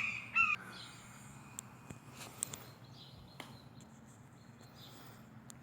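A hawk calling: two short, loud screams in the first half-second, then faint bird chirps and insect sounds in the background.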